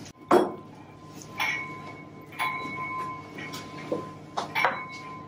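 Cutlery and plates handled while serving and starting to eat: a handful of light clinks and knocks at irregular spacing, the first the loudest, over a faint steady high ringing tone.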